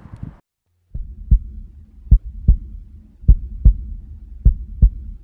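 Heartbeat sound effect: slow paired lub-dub thumps, a pair a little over a second apart, over a low steady drone, starting about a second in after a brief silence.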